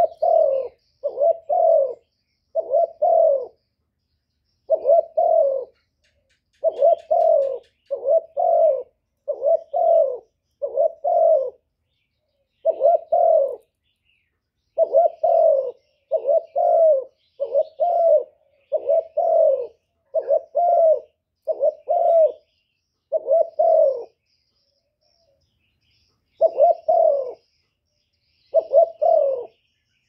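Spotted dove cooing: a steady series of short, slightly falling coos in phrases of two or three, the phrases about a second apart, with a pause of about two seconds near the end.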